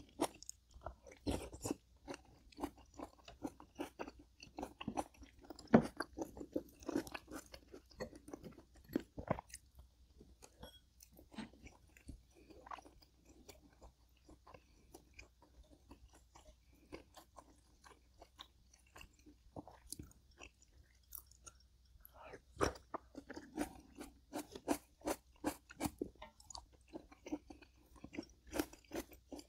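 A person chewing food close to the microphone, with crisp crunching bites and small wet mouth clicks in an uneven rhythm; the chewing thins out for several seconds in the middle.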